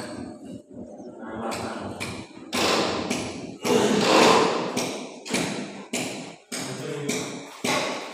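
A series of about six loud, sudden thuds and knocks over several seconds, each trailing off briefly.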